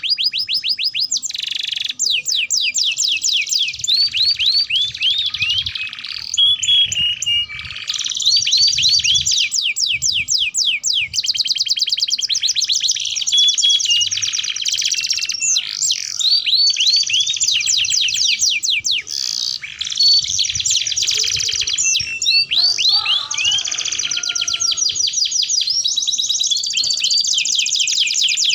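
Domestic canary singing a long, continuous song of rapid trills: fast runs of repeated down-sweeping notes, changing from one trill to the next, with only a few brief pauses.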